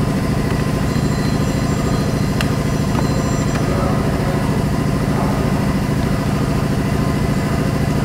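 2004 GMC Envoy engine idling steadily, with a faint click or two about two and a half seconds in.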